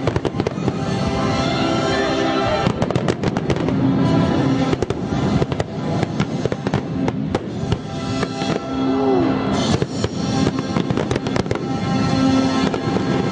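Fireworks going off in rapid volleys of bangs and crackles, with music playing at the same time.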